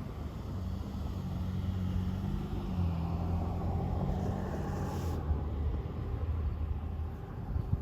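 A motor running steadily with a low hum, with some wind noise.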